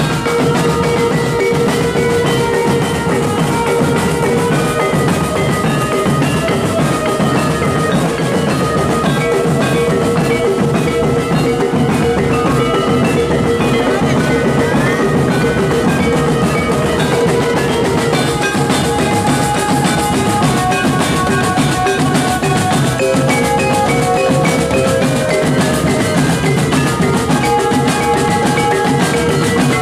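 Drum band playing: a line of marching drums beats a dense, unbroken rhythm under a melody of held notes.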